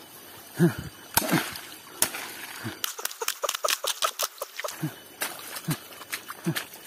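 Hoe blade chopping and scraping wet mud and stones in a shallow irrigation channel, with water sloshing and trickling as the channel is opened. A quick run of clicks comes about three seconds in.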